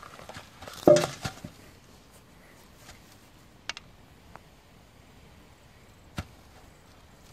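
A hedge plant's soil-covered root ball being set into its planting hole, with a dull thump about a second in, then a few faint clicks.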